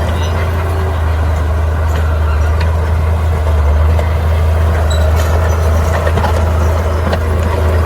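Heavy diesel earthmoving machinery running steadily under load, a deep low engine drone with faint clanks over it.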